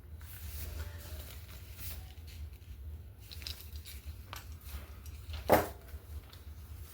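Light handling of paper and craft tools on a tabletop: faint rustles and small clicks over a steady low hum, with one sharp knock about five and a half seconds in.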